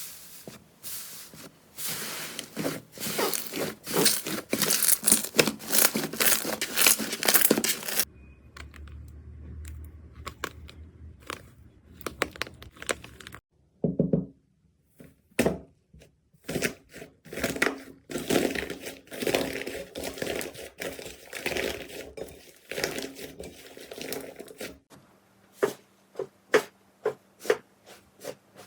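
Slime being squeezed and stretched by hand, making dense crackling and popping for the first several seconds and again in the second half, thinning to scattered single pops near the end.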